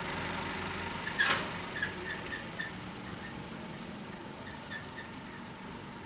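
Street sounds as a donkey cart goes by on a dirt road: a single sharp knock about a second in, then runs of short high squeaks, several a second.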